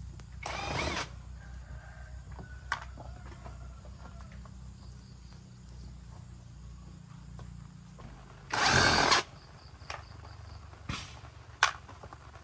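A hand-held power tool run in two short bursts, the second, near the end, louder and a little longer than the first, with a few sharp clicks and knocks of tools or parts between them over a low steady hum.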